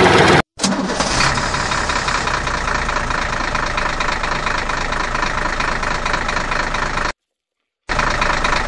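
Engine running steadily with a fast, even pulse, cut off abruptly to silence twice: briefly about half a second in, and for most of a second near the end.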